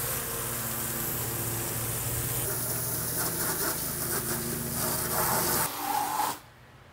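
Pressure washer blasting a hard jet of water across a wooden cleaning table and a cooler: a loud steady hiss of spray over a steady machine hum, cutting off suddenly near the end.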